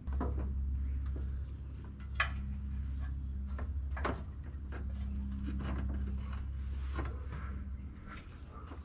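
Scattered clicks and knocks of parts and tools being handled, over a steady low hum.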